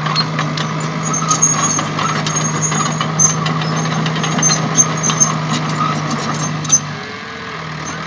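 A heavy engine running steadily with a ticking clatter. The hum drops away for about a second near the end.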